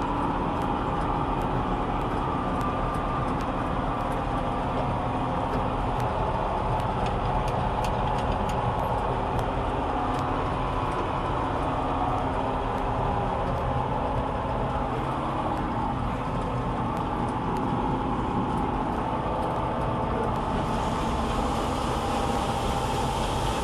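Combine harvester running steadily under load, engine and threshing machinery droning together with many small ticks. A hiss grows louder about twenty seconds in.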